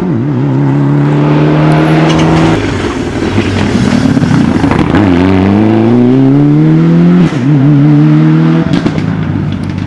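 Rally car engines, Mitsubishi Lancer Evolutions among them, at full throttle. The pitch climbs through each gear and drops sharply at the shifts. The sound changes abruptly a few times as one car gives way to the next.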